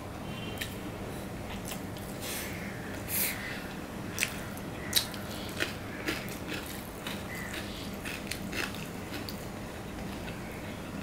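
Fingers mashing and mixing rice with egg-and-onion fry on a stainless steel plate: soft wet squishing, with scattered sharp clicks of fingers on the metal, the loudest a little past the middle.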